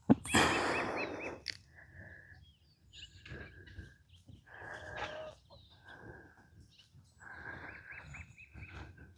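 Chickens calling: a string of short, drawn-out clucking calls, with a longer wavering one near the end. A loud scuffling noise opens the sound in the first second or so.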